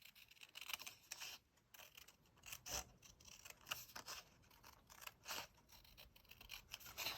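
Scissors cutting through a sheet of patterned paper: a faint run of short, irregular snips.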